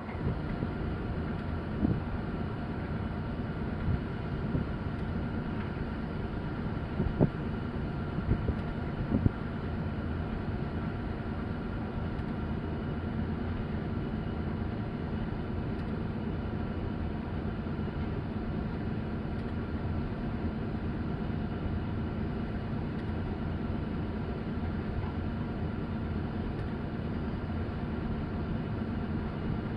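Hitachi long-reach excavator's diesel engine running steadily, with a handful of sharp knocks during the first third.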